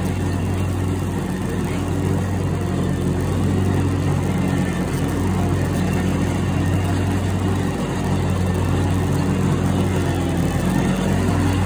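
Riding lawn mower engine running steadily as it drives over grass, a constant low hum that dips briefly twice in the later part.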